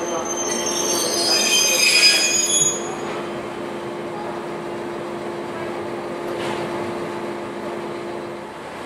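Wheels of a slow-moving DE10 diesel locomotive and the dead EF65 electric it is hauling, squealing shrilly on the rails for about the first three seconds as the pair creeps almost to a halt. After that a steady low hum carries on and stops near the end.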